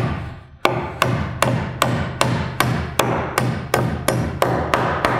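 Hammer driving nails through a wooden sub fascia board into the rafter tails: a steady run of quick strikes, about four a second, each ringing briefly, after a short pause near the start.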